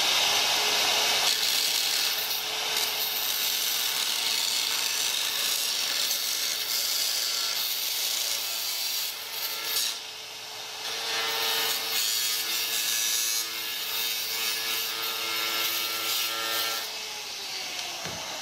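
Angle grinder running at a reduced speed, its ceramic-tile blade grinding through a sheet of glass mosaic tiles and into the plywood beneath. The motor's whine drops away near the end as the grinder winds down.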